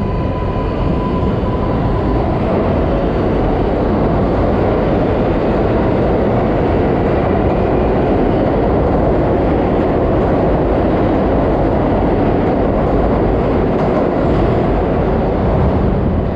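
R188 subway train on the 7 line running through the station: a steady, loud rumble and rush of steel wheels on the rails.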